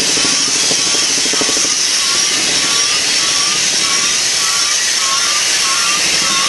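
Freight cars of a BNSF manifest train rolling downgrade: a steady, loud hiss of steel wheels on the rails, with a faint chirp repeating about twice a second that grows plainer later on.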